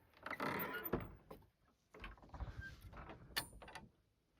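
An old wooden outhouse door being pulled open: a scrape lasting about a second, then lighter knocks and rustling.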